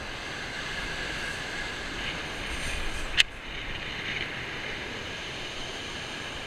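Wind rumbling on the microphone over the steady rush of surf breaking on a shingle beach, with a single sharp click about three seconds in.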